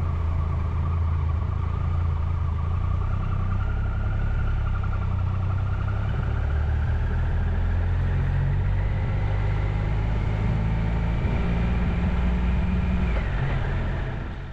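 Motorcycle engine running steadily, with a thin whine that climbs slowly in pitch and drops back near the end.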